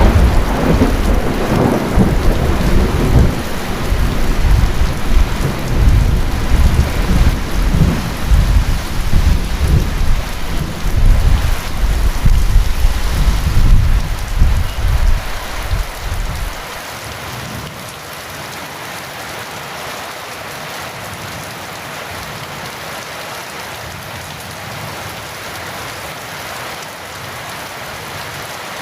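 Heavy rain falling steadily, with a long roll of thunder rumbling over it for roughly the first half. The thunder cuts off a little past halfway, leaving only the even hiss of the rain.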